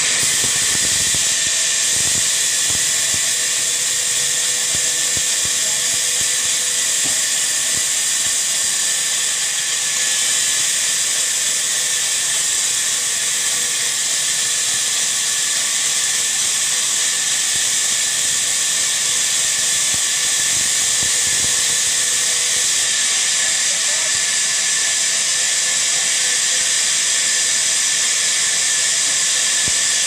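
Large sawmill band saw cutting along a teak slab: a steady, loud, high-pitched hiss.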